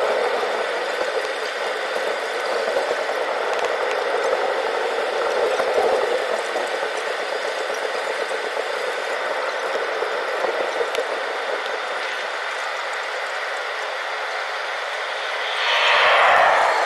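Airbus A321 jet engines and cabin noise heard from inside the cabin while the plane taxis: a steady hum and rush with light rattles. About a second before the end a brief louder rush swells and fades.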